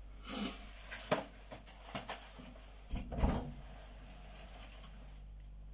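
A few short knocks and rustles of grocery packages being handled and put away, with a heavier thump about three seconds in, then faint room tone.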